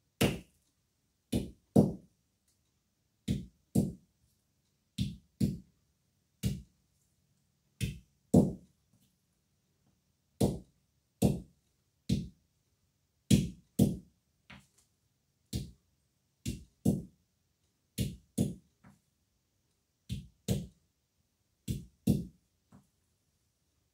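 Green olives being cracked one by one with a hand stone on a flat stone: sharp, hard knocks, mostly in quick pairs roughly every second and a half.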